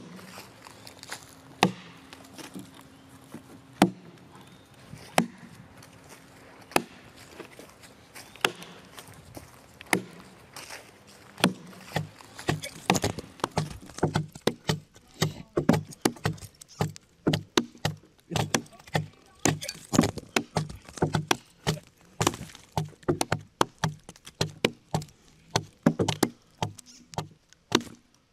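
Axe blows chopping into a moist log as it is hollowed out into a dugout canoe. Single strokes come a second or more apart at first, then from about twelve seconds in the strikes come quicker and overlap, several a second.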